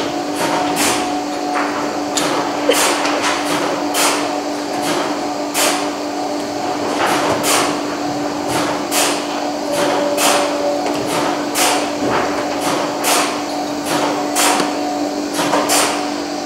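Vertical injection molding machinery running: a steady machine hum under frequent, irregular sharp clicks and ticks, roughly one or two a second.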